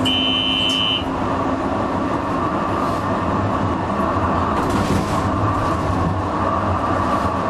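Comeng A-class electric tram running along street track: a steady rumble of wheels and motors, with a rattle of clicks about five seconds in. A short, steady high electronic beep sounds in the first second.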